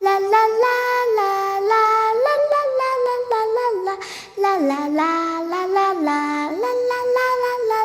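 Young children singing a slow melody of held notes that step up and down.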